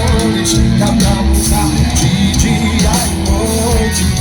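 Upbeat gospel worship music with drums keeping a steady beat and a singing voice.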